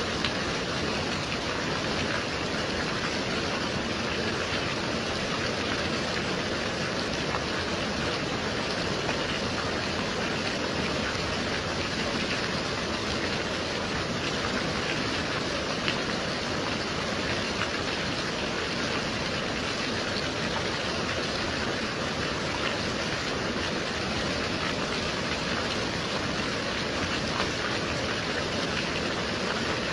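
Gentle rain falling steadily, an even hiss of many drops with an occasional slightly louder drop.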